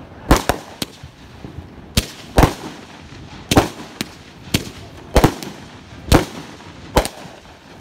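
Consumer firework cakes firing: about ten sharp bangs, spaced irregularly half a second to a second apart, as shells launch from the tubes and burst overhead.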